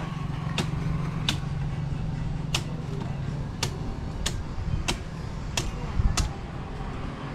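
Machete chopping at a coconut: a series of sharp strikes, mostly about two-thirds of a second apart. A low engine hum runs beneath them for the first few seconds.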